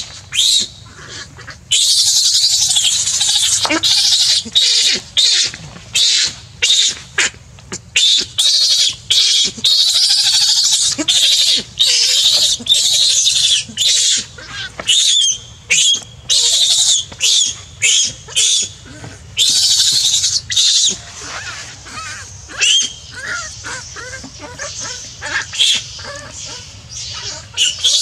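Baby monkey crying: a long series of loud, shrill squealing screams, some drawn out for a second or more, others short and coming in quick runs, with brief pauses between bouts.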